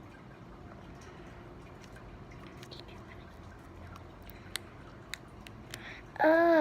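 Slime being squeezed and pulled by hand: faint sticky clicks and squelches, with a couple of sharper pops past the middle. A child's short voiced exclamation comes in near the end.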